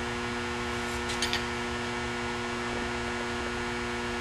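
Steady electrical mains hum, with a few quick, light clicks about a second in.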